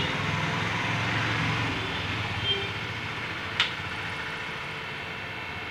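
Hydraulic pump of a 4-ton double-cylinder portable scissor car-washing lift running steadily, with a single sharp click about three and a half seconds in.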